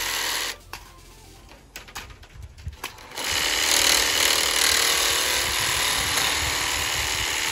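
Cordless jigsaw cutting through a thin PVC pipe: a few clicks and knocks as the saw is set on the pipe, then a loud steady buzz of the blade cutting from about three seconds in.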